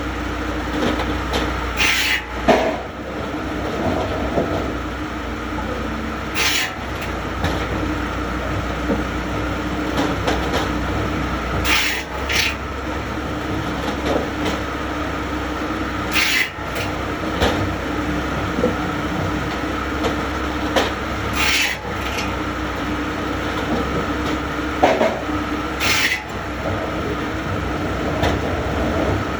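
A woodworking machine running with a steady hum, with a brief high hiss of working wood about every four to five seconds, six times in all.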